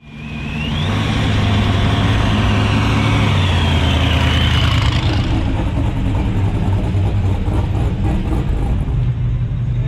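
Classic cars and hot rods driving slowly past, their engines giving a steady low rumble. A high whine rises in the first second and falls away again around four to five seconds in.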